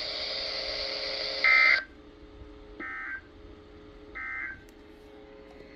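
Emergency Alert System end-of-message code: three short bursts of shrill two-tone digital data about a second and a half apart, the first loudest, signalling the end of the alert. A steady hiss of the broadcast audio cuts off as the first burst ends.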